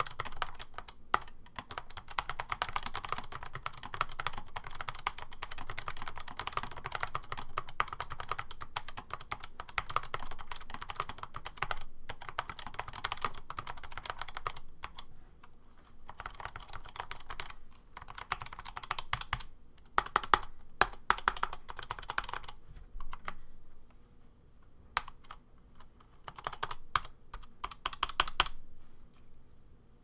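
Typing on an IBM/Lexmark M4 rubber-dome keyboard: a fast, dense stream of key clacks that thins to separate bursts of keystrokes with short pauses about halfway through, then stops a little before the end.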